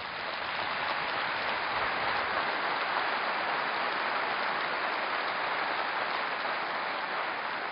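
Large audience applauding, building quickly at the start and then holding steady.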